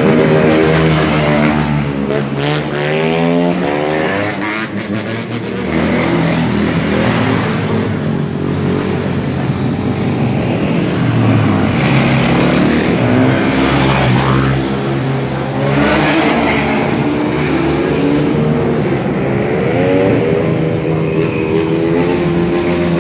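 Dirt bike engines revving hard and passing close, their pitch repeatedly rising and falling as the riders open and close the throttle for wheelies.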